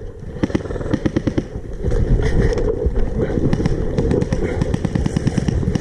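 Airsoft electric guns firing: rapid, sharp clicking pops, sparse at first and then dense, near-continuous bursts from about two seconds in.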